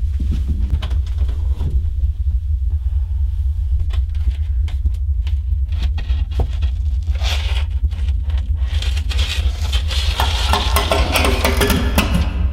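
A steady low droning rumble under scattered small knocks and creaks; from about seven seconds in, scraping as a ceiling attic hatch panel is pushed up and slid aside.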